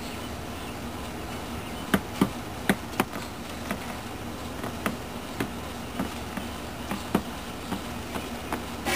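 Small bird striking a window pane at its own reflection: sharp, irregular taps on the glass beginning about two seconds in, the loudest few first and lighter ones after, over a steady low hum.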